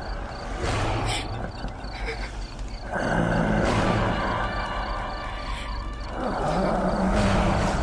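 Horror-show sound design: rough, rumbling roar-like swells over a low drone, building up about three seconds in and again near the end.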